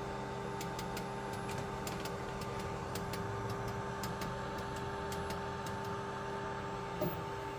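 Glowforge laser cutter starting up: its fans run with a steady hum while a string of light, irregular clicks comes from the machine for about five seconds, followed by a single thunk near the end.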